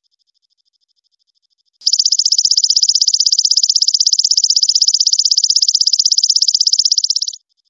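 Golden katydid (belalang emas) stridulating: a loud, high, rapidly pulsing trill starts abruptly about two seconds in and cuts off shortly before the end. A faint, thin pulsing call is heard before and after it.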